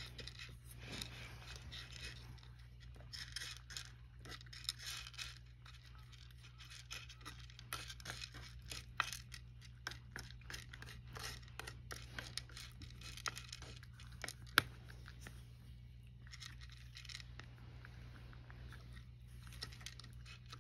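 Cat crunching dry kibble while a wooden spoon scrapes and pushes kibble around a wooden tray: rapid irregular crackly clicks and scraping, with one louder sharp click about two-thirds of the way through, over a steady low hum.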